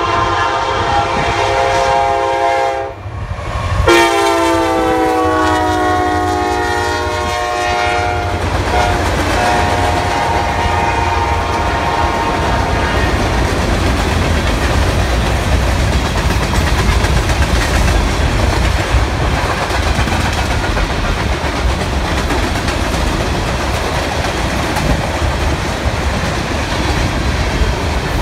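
Freight train passing: the lead Norfolk Southern SD70ACU locomotive's air horn sounds a blast, breaks off briefly, then sounds again with its pitch dropping as the locomotive goes by, fading out a little past the middle of the first half. After that comes a steady rumble of freight cars rolling past, the wheels clicking on the rails.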